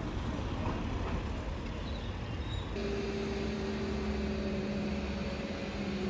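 Street traffic noise: a steady low rumble of passing and idling vehicles, with a steady engine hum coming in about three seconds in.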